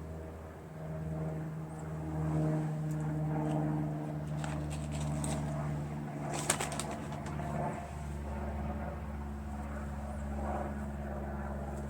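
A steady low hum runs throughout, with a few light clicks and taps as small engine parts are handled, the sharpest about six and a half seconds in.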